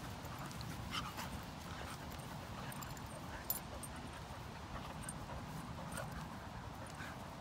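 A Staffordshire bull terrier–Rhodesian Ridgeback cross and a Husky–Pomeranian puppy play-wrestling: soft scuffling and snuffling with a few small clicks, over a steady low background noise.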